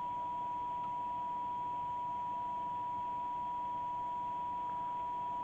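A CB radio receiver's speaker plays a signal generator's steady test tone over a bed of receiver hiss. This is the weak −100 dBm test signal coming through during receive alignment, with the tone still audible above the noise.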